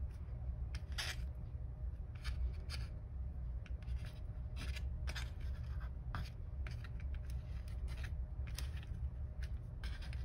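Macramé string being pulled tight through the fingers and rubbed over a cardboard work board while a square knot is tightened. Irregular short scratchy rustles run over a steady low hum.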